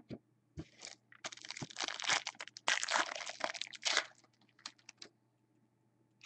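Crinkling and crackling of a trading-card pack wrapper being torn open and handled, with a dense run of about three seconds and a few light ticks after.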